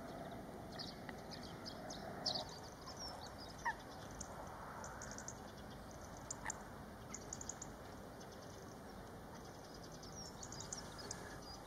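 Faint bird chirps and tweets, many short high calls scattered throughout over a low steady hiss, with a couple of sharper calls in the first few seconds.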